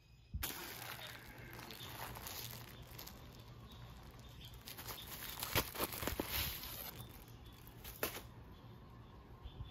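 Crinkling plastic packaging being handled and opened to take out a foam air filter, with several sharper crackles in the middle and a last one about eight seconds in, after which it stops.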